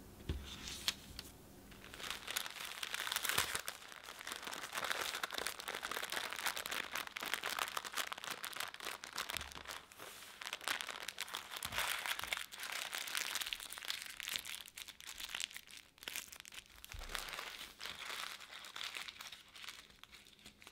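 Parchment paper crinkling and rustling continuously as a roll cake is rolled up tightly in it and pressed into shape by hand.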